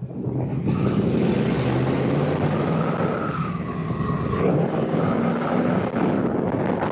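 Motorcycle engine running under way, steady, with wind and road noise.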